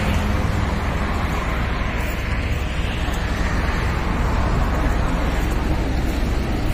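Steady low rumbling outdoor noise: wind buffeting the phone microphone over a background of road traffic.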